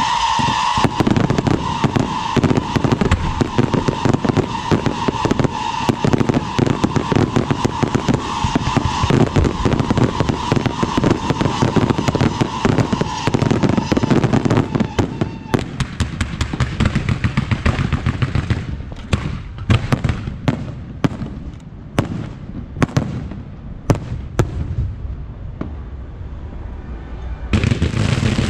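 Aerial fireworks going off in a dense, rapid barrage of bangs and crackles, with a steady high tone running under the first half. About halfway through the barrage thins to scattered single cracks, which die away near the end.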